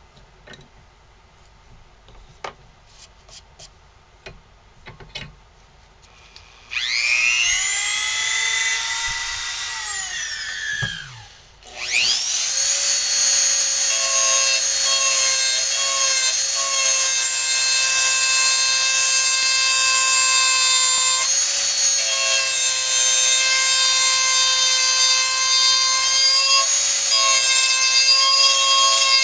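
Handheld rotary tool with a small drill bit, drilling into a wooden blank clamped in a vise. After a few light handling clicks the motor starts with a high whine about seven seconds in, winds down and stops about four seconds later, then starts again and runs steadily, its pitch shifting slightly as the bit works into the wood.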